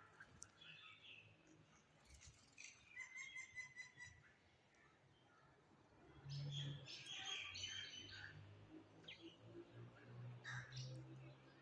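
Birds chirping and calling, faint: short scattered chirps and a trilled call, with a busier run of calls from about six seconds in.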